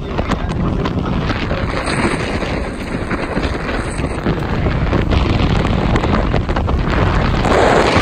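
Wind blowing across the microphone, a loud gusty rush that grows louder toward the end.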